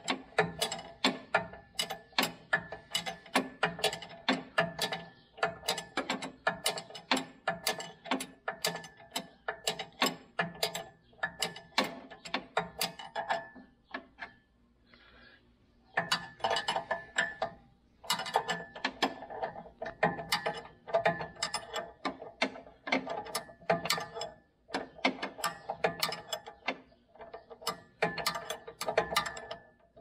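Ratchet wrench clicking in quick runs of strokes on a bolt inside a baler's bale chamber, with a metallic ring. It pauses for a couple of seconds about halfway through, then carries on.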